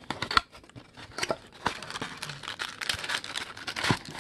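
Hands handling a cardboard trading-card box and its contents: a run of sharp clicks and taps with cardboard rustling and crinkling, busier from about the middle on.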